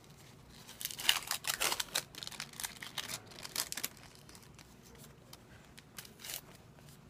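Crinkling and rustling of plastic and paper medical wrappers and dressings being handled and crumpled, a busy stretch of rustling with sharp crackles for about three seconds, then a few scattered clicks.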